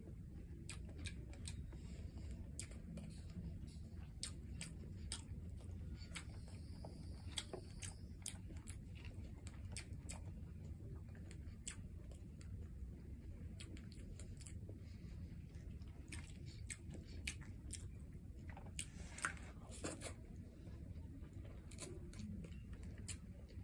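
Close-miked wet chewing and mouth clicks from eating rice and tomato stew by hand, many short sharp clicks scattered irregularly over a steady low hum.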